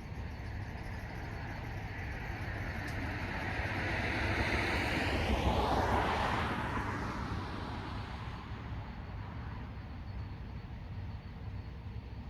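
A single car passing by: tyre and engine noise swells to a peak about halfway through, then fades away within a couple of seconds, over a steady low rumble.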